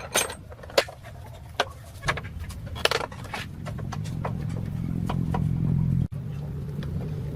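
Clicks and knocks of metal being handled, then a steady low motor hum that starts about two seconds in, grows louder and cuts out for a moment near the end.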